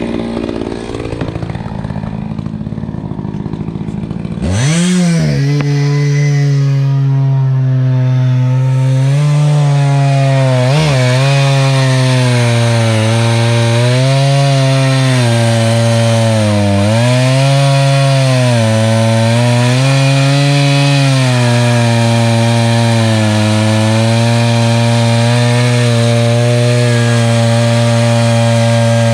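Echo CS-590 Timber Wolf two-stroke chainsaw on a Granberg chainsaw mill, ripping a cedar log lengthwise with a ripping chain. About four seconds in it revs up sharply, then runs at full throttle under load, its pitch dipping and recovering every couple of seconds as the cut bogs it, steadier near the end.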